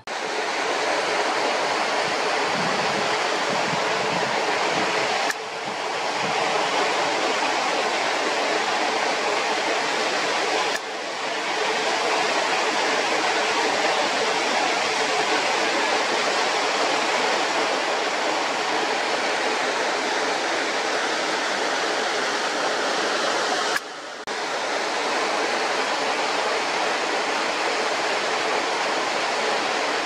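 Waterfall pouring over a rock cliff: a steady, continuous rush of falling water. It dips briefly three times.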